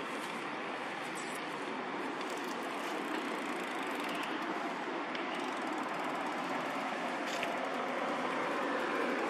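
Steady background noise of a vehicle, slowly growing louder, with a few faint clicks.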